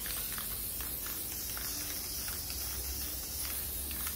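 Aerosol can of Brillo Nu-Life Color Renew leather colour spray hissing in one steady, continuous spray.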